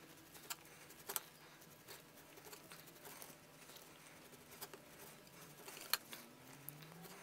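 Faint, scattered ticks and scrapes of a leather knife paring thin slices off the edge of a leather shoe vamp, the blade tapping the cutting board now and then, with a sharper click about six seconds in.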